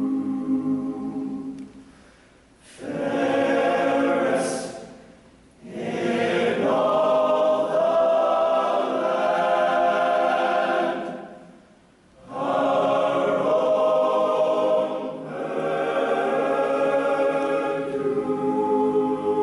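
Choir singing in harmony as background music, its phrases broken by three brief pauses.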